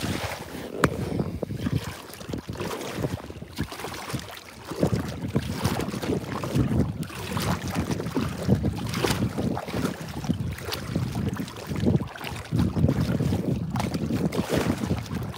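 Wind buffeting the microphone in uneven gusts, with water splashing against the hull of a small inflatable boat.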